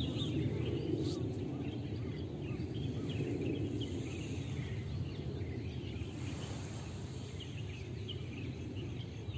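Outdoor ambience: a steady low background rumble, with many short high chirps from small birds scattered throughout.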